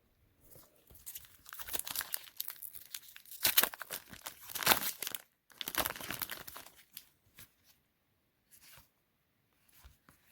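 Trading-card pack wrapper being torn open and crinkled, loudest about three and a half to five seconds in, then a few faint rustles.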